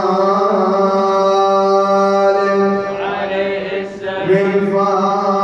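Men's voices chanting an unaccompanied Arabic mawlid (mālid) devotional chant: a steady held note sounds throughout while, about three seconds in, a lead voice sings a short ornamented line over it.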